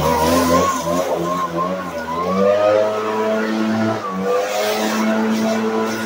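Echo leaf blower running, coming on loud right at the start, its pitch wavering up and down as the throttle shifts.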